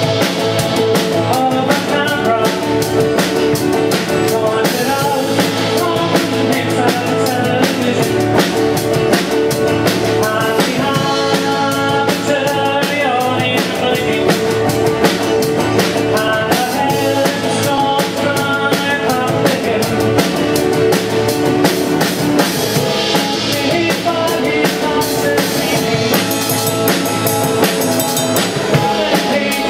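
A live band playing a song: several guitars strumming over a drum kit keeping a steady beat.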